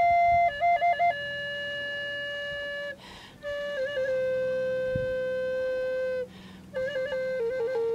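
Native American-style wooden flute played solo: long held notes stepping downward in pitch, each decorated with quick flicking grace notes, with two short breaks for breath about three and six and a half seconds in.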